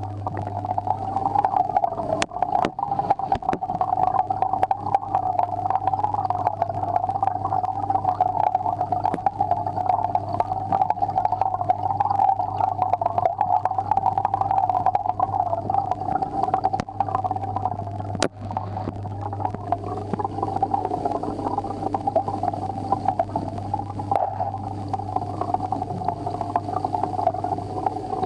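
Aquarium air pump and bubbles heard underwater inside the tank: a steady low hum with a wavering bubbling wash over it. A few sharp clicks break through, the loudest about eighteen seconds in.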